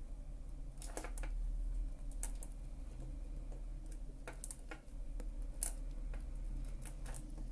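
Small sharp clicks of the steel tips of small jewellery pliers on a bead's metal wire loop and a stone bead while the loop is bent back into shape, coming in short clusters several times.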